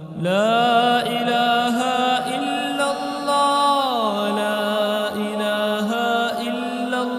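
Devotional vocal chanting: a voice holding long, drawn-out notes. The phrase starts just after the beginning, steps down in pitch about halfway, and climbs again near the end.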